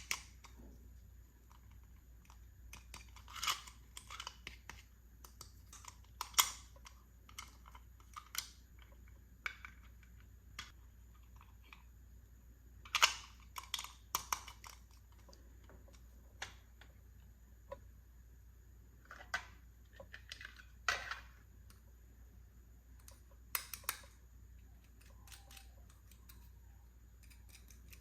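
Handling of small plastic toy pieces and their packaging: scattered light clicks and taps with a few brief rustles, at irregular intervals.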